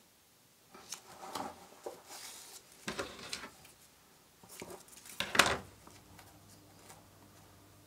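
Handling noises from lampshade materials being worked by hand: a few short rustles and light knocks, the loudest about five and a half seconds in. After that a faint low hum sets in.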